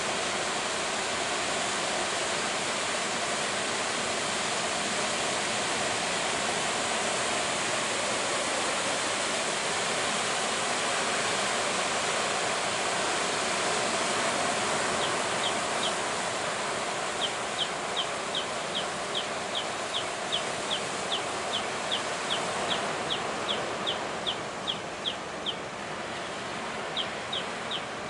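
Steady rushing of heavy surf breaking at a river mouth. From about halfway on, a rapid run of short high chirps, two or three a second, rides over it.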